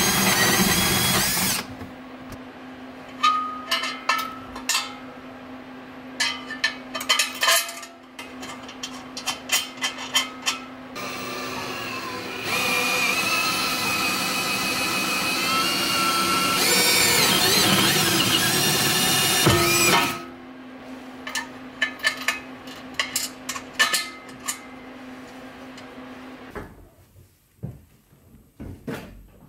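Cordless drill drilling bolt holes through the car's floor: a short run at the start, then a long run of about eight seconds whose motor pitch wavers under load. Clicks and knocks of handling between the runs.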